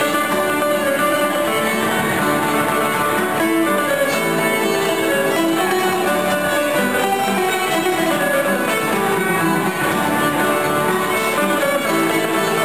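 Live ceilidh band playing a march, with fiddles carrying the tune over a strummed acoustic guitar.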